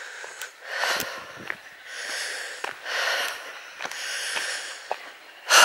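A walker's heavy breathing, a long noisy breath about once a second, with a few faint footsteps on a gravel lane.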